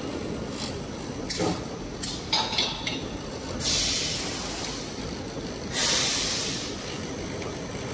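Automatic toilet paper and kitchen towel production line running with a steady mechanical noise and a few sharp clicks between one and three seconds in. It is broken by two loud hisses of about a second each, a little under four seconds in and near six seconds.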